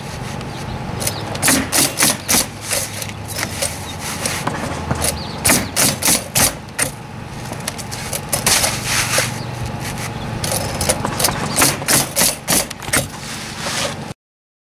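Pneumatic coil roofing nailer shooting nails into asphalt shingles: sharp shots, often several in quick succession, in clusters, over a steady low hum. The sound cuts off abruptly just before the end.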